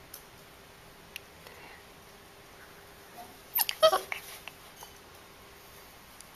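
Siberian husky puppy giving a quick run of short, high yelps about three and a half seconds in, while being rubbed on its belly.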